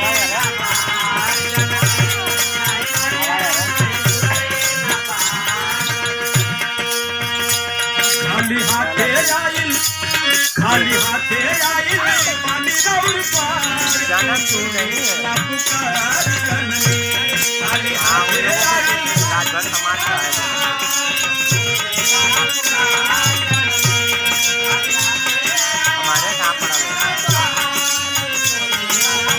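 Live Bhojpuri folk music for a devotional vandana song. Drum beats and a jingling rattle keep a steady rhythm under sustained melody notes.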